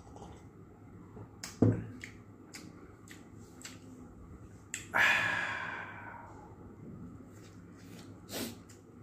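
Close-miked eating sounds at the table: a string of small mouth clicks and smacks, a thud about one and a half seconds in, and a louder noisy smack about five seconds in that fades over about a second.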